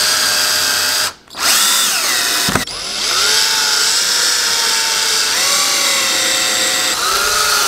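Power drill driving 1.5-inch wood screws into wooden boards. The motor whine stops briefly about a second in, then starts again and falls in pitch, ending in a sharp click. It then runs steadily again, stepping up in pitch about two-thirds of the way through.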